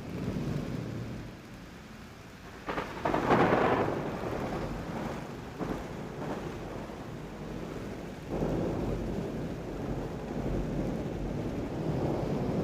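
Thunder: a sharp crack about two and a half seconds in breaks into the loudest peal, with another short crack near six seconds. From about eight seconds a long, low rolling rumble builds again and carries on.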